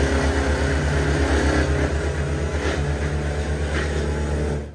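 An engine running steadily with a low, even pulsing, cut off abruptly just before the end.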